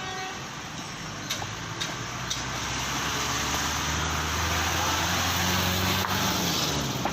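Street traffic noise, with a motor vehicle's engine hum growing louder from about three seconds in and fading near the end as it passes.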